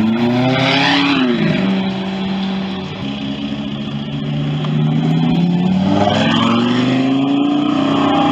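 A performance car's engine accelerating: the revs climb, fall sharply about a second in, then rise steadily again over the following seconds.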